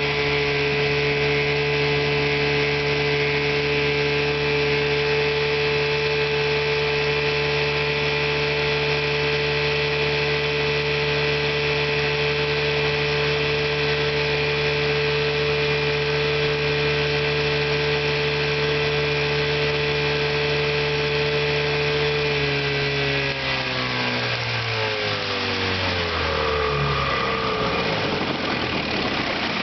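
A 1971 Chrysler 9.9 hp two-stroke outboard motor running steadily at speed, then throttled back about three-quarters of the way through, its pitch falling over a few seconds as it slows toward idle.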